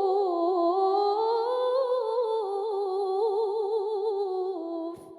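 A woman's melodic Qur'an recitation, stretching the final vowel of "bi-ma'ruf" into one long ornamented line with quick wavering turns that rises and then settles. It stops about four and a half seconds in, leaving a short echo, with a brief click just before the end.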